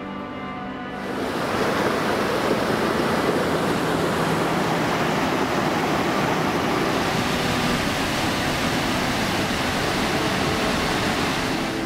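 Waterfall: loud, steady rushing water that cuts in abruptly about a second in and stops abruptly near the end. Background music plays briefly before it.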